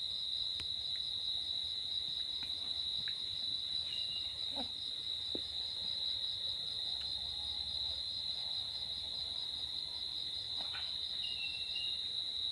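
Steady, high-pitched insect trill, typical of a cricket, with a fine even pulsing and a few faint ticks over it.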